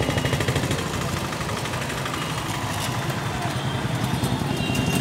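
Motorcycle and other road-vehicle engines running steadily in street traffic.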